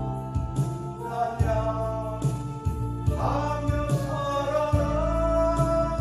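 Korean gospel praise song: a man singing over instrumental accompaniment with a steady beat, the voice rising to a held note about three seconds in.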